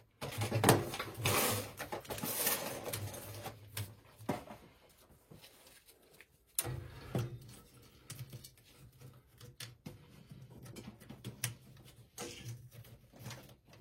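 Wing nuts being put back on by hand on a gas steam boiler's burner assembly: irregular metal clicks, taps and rattles of small parts being handled. It is busiest in the first few seconds, then quieter, with single clicks now and then.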